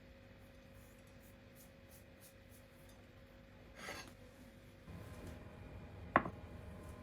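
Kitchen handling sounds: a brief scrape about four seconds in, then one sharp, ringing clink of glass or dishware near the end, over a low hum that starts about five seconds in.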